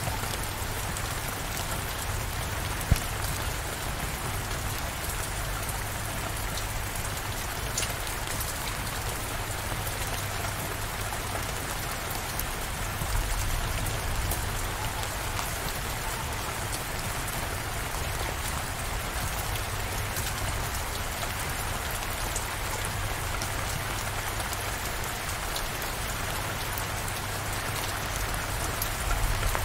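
Steady rain falling, an even wash of patter with scattered drop ticks. A single sharp tick comes about three seconds in, and a brief low swell comes midway.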